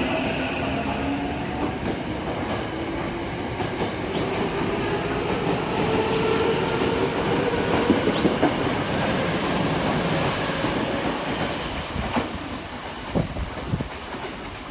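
Ten-car electric commuter train pulling out and accelerating past, its traction motors whining upward in pitch and its wheels clicking over the rail joints. The sound fades near the end, with a few sharp clacks as the last cars pass.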